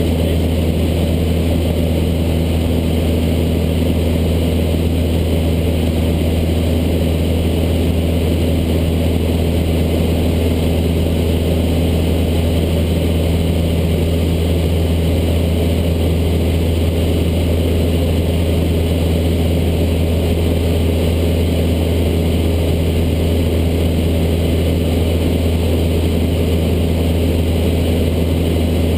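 A Cessna light aircraft's piston engine and propeller running steadily in flight, heard from inside the cabin as an even, low drone that does not change in pitch or loudness.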